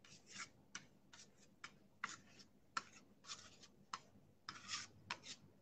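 Faint, quick scraping strokes of a trowel spreading a thin finishing coat of Venetian stucco over a panel, short irregular swipes at roughly two to three a second.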